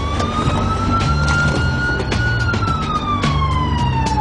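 Police car siren wailing in one slow cycle: the pitch rises for about two seconds, then slowly falls, over a low pulsing beat.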